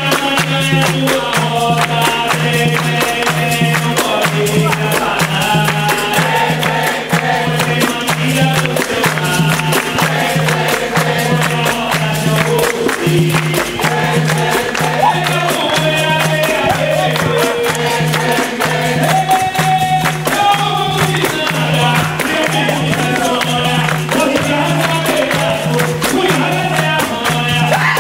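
Capoeira roda music: berimbaus, an atabaque drum and pandeiros keep a steady rhythm while the group sings together and claps hands.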